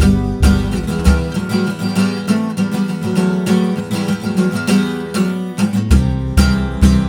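Instrumental passage of a semi-acoustic rock band, led by strummed acoustic guitar. The deep bass drops out about a second in and comes back near the end.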